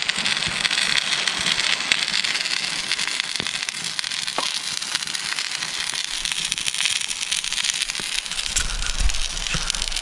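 Wood campfire burning with dense, steady crackling and popping, with a brief rising whistle about four seconds in.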